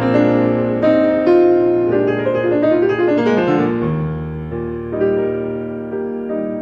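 Solo piano music, with a quick run of notes near the middle before the notes settle into slower held chords.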